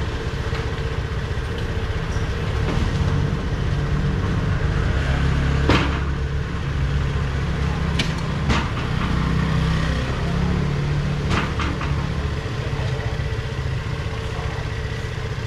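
Light truck's engine idling with a steady low rumble, with a few sharp knocks from foam boxes being handled at the truck, the loudest about six and eight seconds in.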